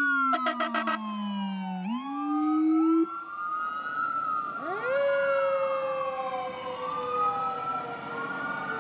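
Fire engine running its sirens: an electronic siren wailing up and down, together with a lower mechanical siren that winds up, cuts off, winds up again and then slowly winds down. A quick rapid rattling burst comes about half a second in.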